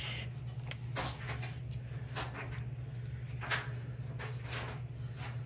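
Soft rustles and light taps of paper and lace trim being handled and laid on a book page, over a steady low hum.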